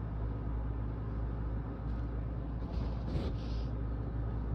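A steady low hum runs throughout. About three seconds in, a person makes two short, breathy noises through the nose.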